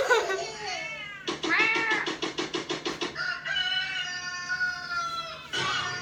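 A cat meowing in a ringtone recording: drawn-out meows, one rising and falling with a quick pulsing flutter, then a long meow that slowly falls in pitch.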